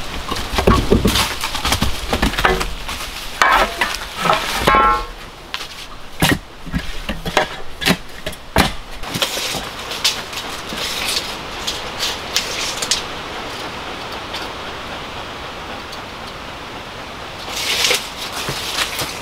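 Shovel digging and scraping in stony forest soil: a run of knocks and scrapes, one with a brief pitched ring about four seconds in, thinning out after about nine seconds. A rustle of dry leaves follows near the end.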